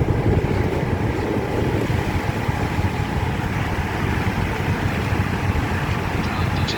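Steady low rumbling noise with a hiss above it, unbroken and without distinct events.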